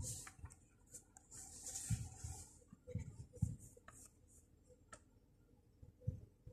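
Quiet rustling and handling noise with a few soft thumps and light clicks, including a mouse click about five seconds in.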